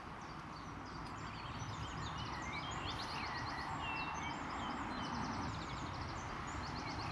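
Songbirds singing, several rapid trills and short chirps and whistled notes overlapping throughout, over a steady outdoor background hiss.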